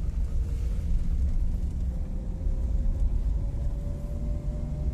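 Car driving along a road, heard from inside the cabin: a steady low rumble of engine and tyres, with a faint steady whine above it.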